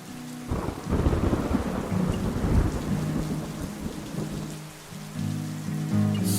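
A clap of thunder breaks about half a second in and rolls for several seconds before fading, over steady rain.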